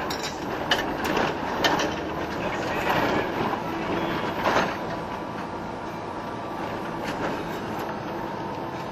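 A moving vehicle's steady running noise, with scattered knocks and rattles in the first half and a steadier run after that.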